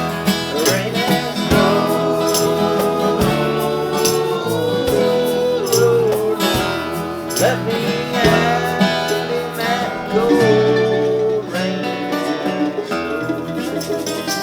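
Band playing a folk-rock song on guitars, with a melodic lead that slides between long held notes over a steady beat.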